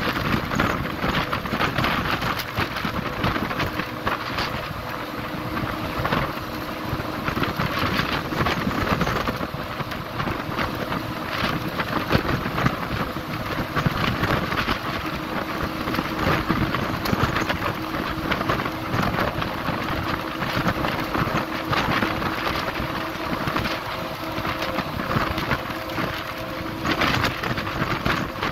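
Wind buffeting the microphone of a camera held out from a moving vehicle, a steady rush with gusty flutter over the vehicle's road noise. A faint steady hum runs beneath it and grows a little stronger near the end.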